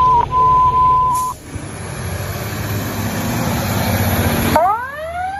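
A loud steady alert tone from the fire dispatch radio, cut off about a second in. Then a noisy rush from Detroit Fire Department Engine 42 grows louder, and near the end the engine's siren begins to wind up, its pitch climbing fast and then levelling off.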